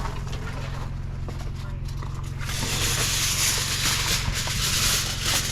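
Aluminium foil being pulled off the roll and crinkled around a smoked pork butt, a dense crackly rustle starting about halfway through, over a steady low hum.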